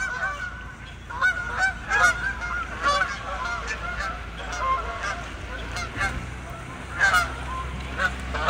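A flock of geese honking: many short calls overlapping in quick succession, over a low steady hum.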